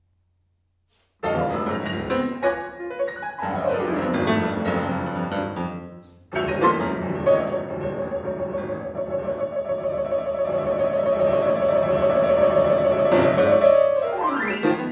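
Yamaha grand piano played four-hands by two pianists in a modern concert piece. It enters suddenly about a second in with loud dense chords and a downward sweep across the keys, breaks off near six seconds, then resumes with a rapidly repeated note held for several seconds under other chords, closing in an upward sweep.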